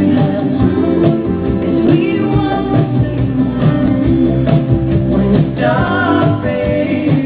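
A song with singing and guitar, laid over the video as background music.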